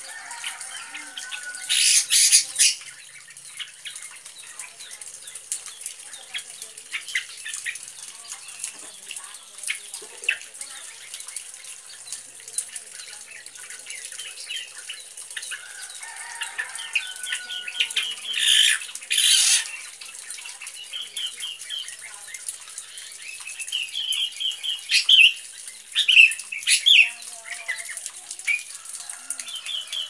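Caged black drongo giving short chirping phrases that mimic a sooty-headed bulbul, broken by a few loud, brief bursts of wing flapping: one near the start, one around the middle, and several close together near the end.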